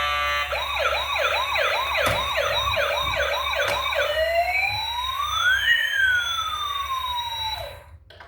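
Toy vehicle's electronic siren. It sounds a fast yelp cycling about three times a second, then switches to a single slow wail that rises and falls, and cuts off just before the end.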